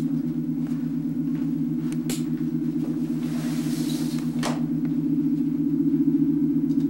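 Low electronic sci-fi hum with a fast flutter, on two low notes at once, growing slightly louder. Faint swishes come about two seconds in and again around four seconds in.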